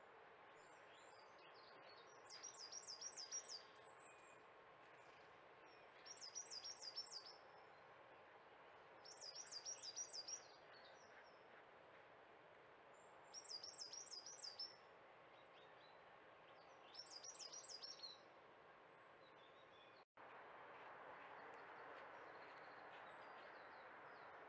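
A small songbird sings a short, high phrase of quick repeated notes five times, every three to four seconds, over a steady hum of distant road traffic. The singing stops before a brief break in the sound near the end.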